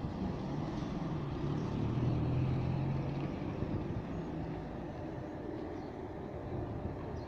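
Electric drive of a wheel rim-rolling and straightening machine running with a steady low hum. The hum is a little louder in the first few seconds and eases slightly toward the end.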